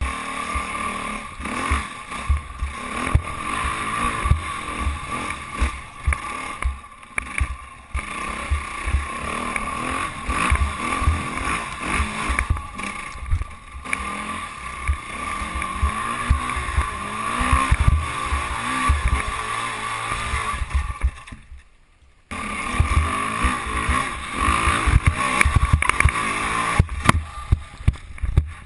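KTM enduro dirt bike engine running and revving up and down as it is ridden over sand and up a bank, with heavy wind buffeting on the action camera's microphone. The sound drops out for under a second about three-quarters of the way through.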